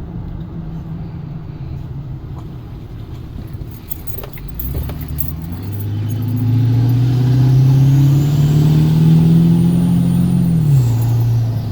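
Ford F-250 turbo diesel with an aftermarket SXE 364.5 turbocharger, idling and then revved up about six seconds in and held. As the revs hold, the turbo whistle climbs to a high, steady pitch, then falls away as the revs drop near the end.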